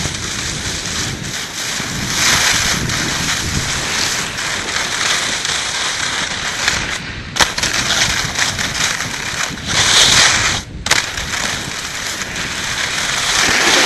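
A snowboard sliding and carving down packed snow: the edge scrapes in swells that rise and ease every few seconds, with wind rushing over a helmet-mounted microphone. There is one sharp knock about halfway through.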